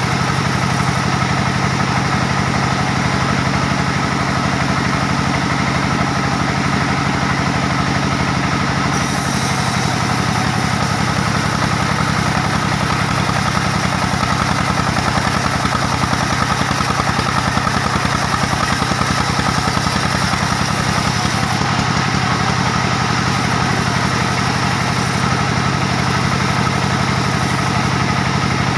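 Diesel engine driving a band sawmill, running steadily and loud. About nine seconds in, a brighter hiss joins the engine and drops away again around twenty-two seconds in.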